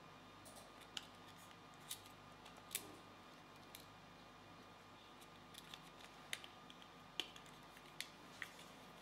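Scattered light clicks and taps of plastic as the shell halves of a Maker Factory 3D printing pen are handled and fitted back together, over near-silent room tone.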